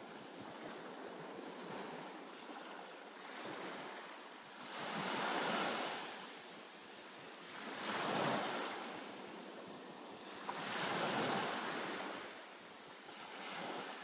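Ocean surf: waves washing in and receding, swelling about every three seconds, with wind noise on the microphone.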